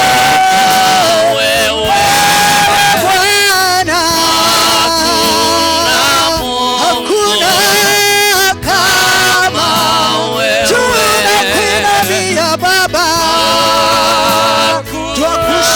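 A worship song: a voice sings long, wavering held notes over a steady bass line, phrase after phrase, with brief breaks between phrases.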